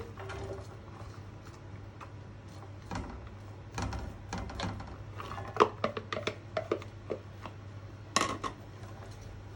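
Irregular clinks and knocks of a spoon against a pan as sliced onions are put into oil and stirred, over a steady low hum.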